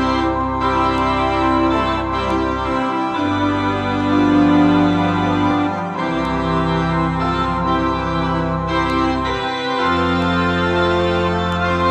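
Electronic home organ playing a hymn in slow, held chords over a low bass line. The bass notes change about every three seconds, with a brief break between them.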